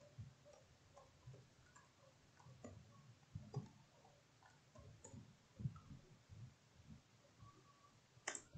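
Faint, irregular computer keyboard clicks as a command is typed, over near-silent room tone, with one sharper key click near the end.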